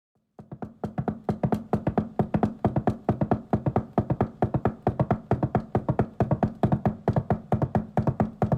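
A rapid, even run of sharp percussive knocks, several a second, over a steady low hum. It starts abruptly and runs without a break.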